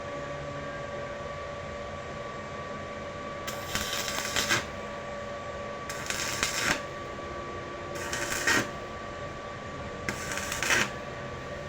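Electric arc welding in four short bursts, each under a second and about two seconds apart: the crackling sizzle of the arc as tack welds are laid on a steel shock bracket. A steady hum runs underneath.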